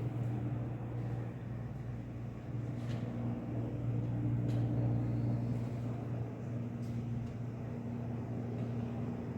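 A steady low mechanical hum, engine-like, with a few faint clicks over it.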